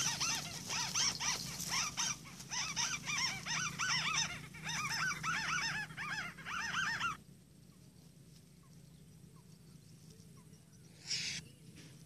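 White-browed crake calling: a fast chattering run of repeated rise-and-fall notes, several a second, that cuts off suddenly about seven seconds in. A short rustle follows a little after eleven seconds.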